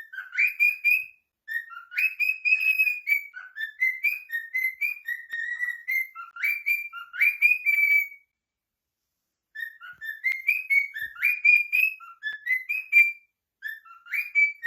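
Cockatiel whistling a song: runs of short, clear whistled notes with quick upward slides, in phrases broken by brief pauses, the longest about a second and a half around the middle.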